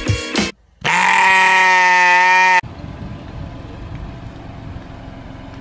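Music breaks off, then a loud cry held at one steady pitch for about two seconds starts and stops abruptly, followed by a low steady background.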